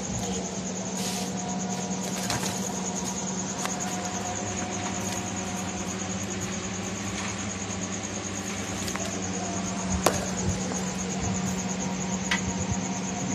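Steady machine hum with a constant high whine over it, broken by a few sharp clicks, the loudest about ten seconds in.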